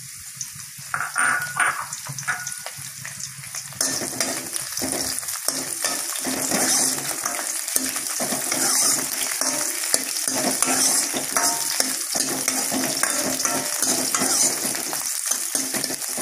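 Fresh curry leaves sizzling in hot oil in a steel kadai with dried red chillies and garlic, stirred with a ladle. The frying is fairly quiet at first, then becomes a loud, steady sizzle with many small crackles from about four seconds in.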